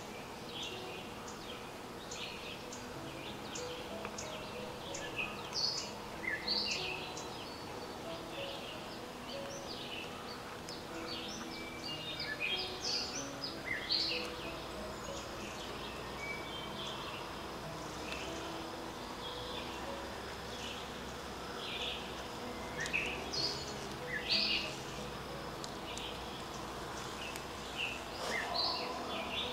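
Wild birds chirping, many short high calls overlapping and scattered throughout, over a steady low background.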